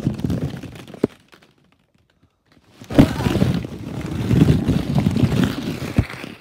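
A sudden thump about three seconds in, followed by several seconds of close rustling and shuffling: a person dropping into a ball pit of plastic balls, with the phone jostled among them. A short rustle and a click come before it, with a quiet gap in between.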